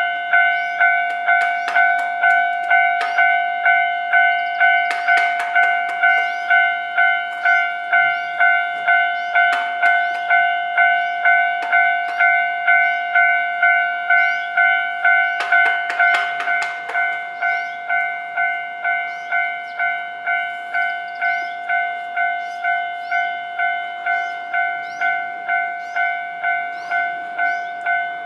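Japanese level crossing's electronic warning bell ringing steadily, a repeating ding about one and a half times a second, a little quieter after about seventeen seconds. Over it a train passes, its wheels clicking over the rail joints in clusters, heaviest around fifteen to seventeen seconds in.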